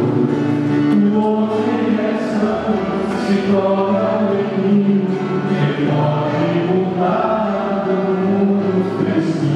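A church congregation singing a hymn together, many voices on long held notes that change about once a second.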